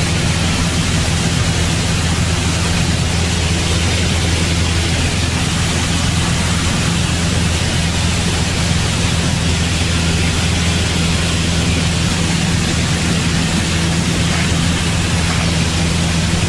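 Cockpit noise of a Piper light aircraft in cruise: the engine and propeller's steady low drone under an even rush of air noise.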